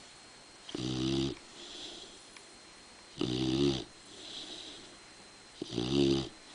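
A sleeping dog snoring: three loud snores about every two and a half seconds, with softer breaths between them.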